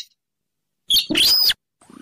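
Buff-banded rail (weris, sintaran sawah) calling. A short note just at the start, then about a second in a loud, harsher call of about half a second with an arching pitch, and another call beginning near the end.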